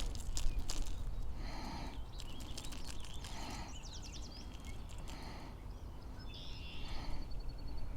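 Birds calling: one call repeats about every second and a half to two seconds, with a short chirpy phrase partway through and a quick trill near the end, over a steady low rumble. A few sharp clicks sound right at the start and are the loudest thing.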